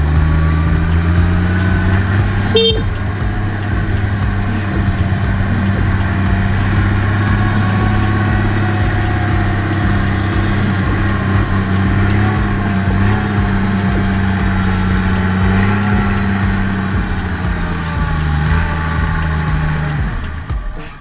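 Engine of a homemade rice-transport farm truck running steadily under load, picking up speed at the start and easing down a little near the end. A brief high toot sounds about two and a half seconds in.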